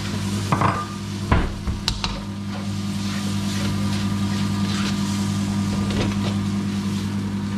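Food sizzling in a steel wok over a gas flame as it is stirred with a metal spatula, which knocks sharply against the pan a couple of times in the first two seconds. A steady low hum runs underneath.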